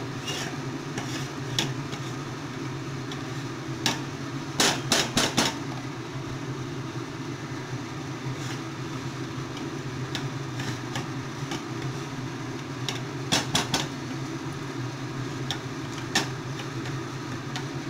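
A spatula scraping and knocking against a frying pan as flour is stirred into hot water to make a dough, with sharp clusters of knocks about four seconds in and again near the end. A steady low hum runs underneath.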